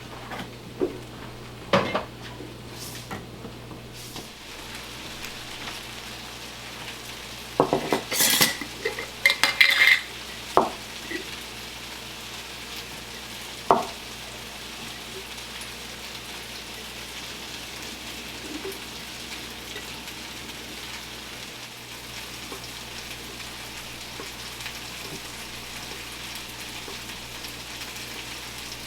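Scattered sharp clicks and knocks, several close together about eight to ten seconds in, then a steady hiss.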